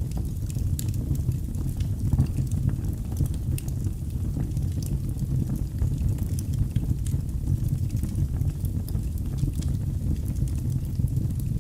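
Wood fire burning in a fireplace: a steady low rush with scattered sharp crackles and pops.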